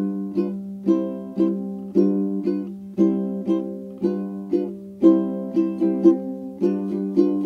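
Background music: a light plucked-string tune with a steady beat, notes struck sharply and fading away.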